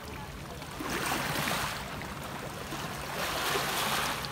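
Small sea waves washing in over a pebble shore and against rocks, swelling twice: about a second in and again near the end.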